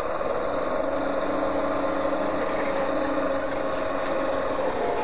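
A large engine running steadily at an even speed, with a constant drone.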